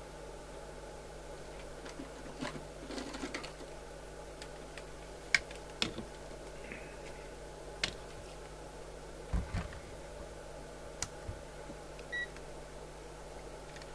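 Scattered clicks and knocks of test leads and tools being handled on a radio service bench, with a dull thump about two thirds of the way in and a short electronic beep near the end, over a steady low mains hum.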